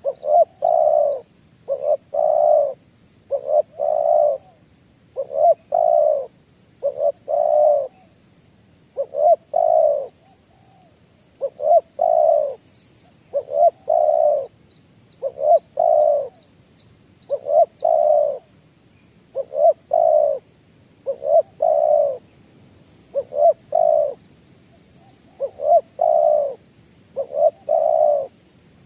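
A dove cooing over and over, its low phrases repeating steadily about every second and a half, with faint high chirps of smaller birds.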